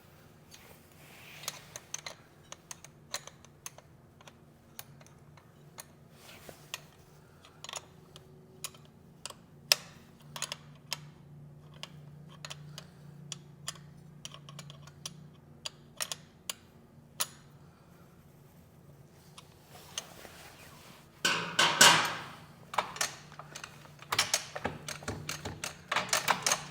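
Hand tools working on a motorcycle's shift linkage: scattered sharp metal clicks and taps, with a louder spell of rapid clicking and clatter near the end as the fasteners are tightened.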